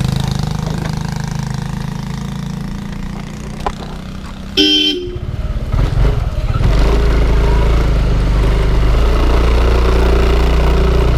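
Yamaha Aerox scooter's single-cylinder engine running low, then a short horn toot about four and a half seconds in. After that the engine revs up and the scooter pulls away, running steadily under throttle.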